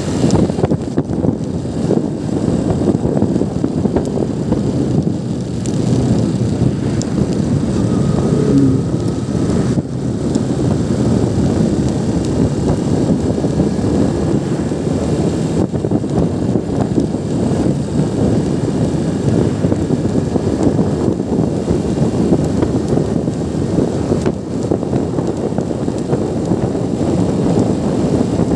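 Motorcycle on the move at steady road speed: engine running under a heavy rush of wind over the microphone.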